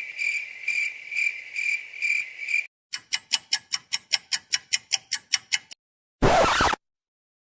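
A string of short sound effects: first a high chirping tone pulsing about twice a second, cricket-like; then a quick run of sharp ticks, about five a second; then a brief burst of noise.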